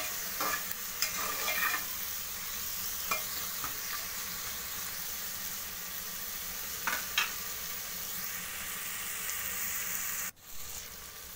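Chopped onion and tomato sizzling steadily in hot oil in an aluminium pressure cooker, cooking down with salt. A steel spoon scrapes the pan a few times in the first two seconds and knocks briefly about seven seconds in. The sizzle drops out for an instant near the end and comes back quieter.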